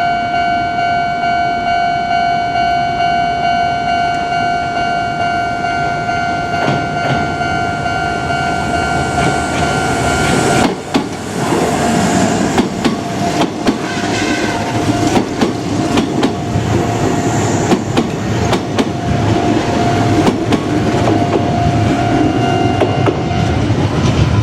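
Level-crossing warning bell ringing steadily. About eleven seconds in, a Kintetsu Nagano Line train begins passing over the crossing, its wheels clacking over the rail joints, while the bell keeps ringing until near the end.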